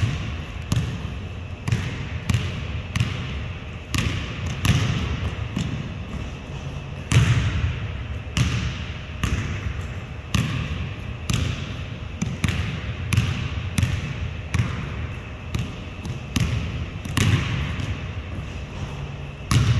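Basketball dribbled on a hardwood gym floor, bouncing about twice a second, with a few short pauses.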